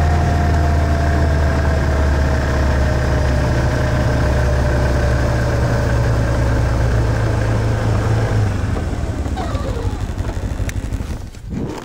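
Snowmobile engine running steadily under way over snow, with a slowly falling whine above it. About eight seconds in it eases off, and the sound dies away near the end as the machine slows to a stop.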